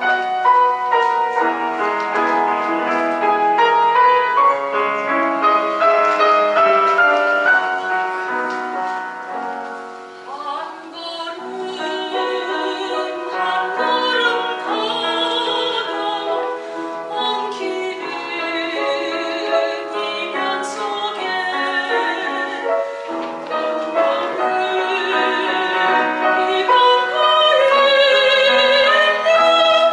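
Grand piano playing a slow introduction, then a soprano comes in about ten seconds in and sings with a wide vibrato over the piano accompaniment, in the classical style of a Korean art song (gagok).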